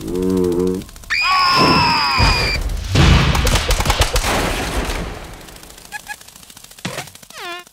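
Cartoon sound effects and gibberish voices: a short cry, then a long high-pitched wail. About three seconds in comes a rapid rattling volley of quick hits that fades away over about two seconds, and a short falling squeal near the end.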